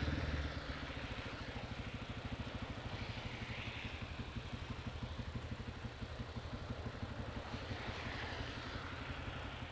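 Motorcycle engine idling with a steady, even pulse while the bike is eased into a parking spot.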